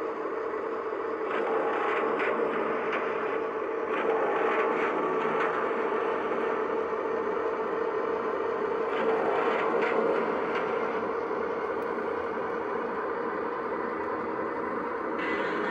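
Lionel O gauge Santa Fe streamlined passenger cars rolling past on three-rail track: a steady running rumble of metal wheels on rail, with a few light clicks here and there.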